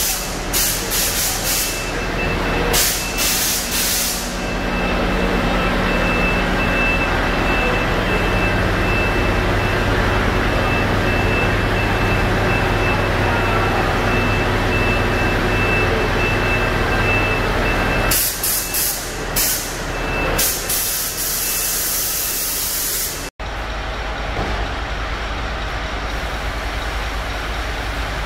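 Heavy diesel trucks idling with a steady low hum. Sharp bursts of compressed-air hiss, like air brakes releasing, come in the first few seconds and again near the end. In between, a high beeping tone pulses steadily for about fifteen seconds.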